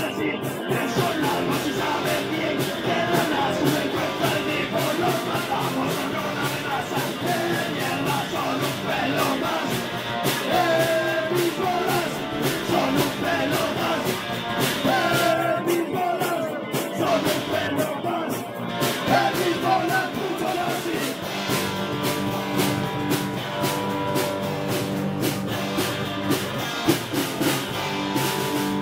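Live punk rock band playing: electric bass, electric guitar and drum kit, with a singer's voice through a microphone and PA speaker. The vocals stop about two-thirds of the way in and the instruments carry on.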